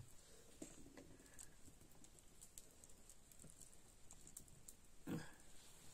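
Near silence with faint, scattered light clicks and scrapes of a metal spoon scooping a thick paste from a plastic bag into a plastic jar. One short, louder sound comes about five seconds in.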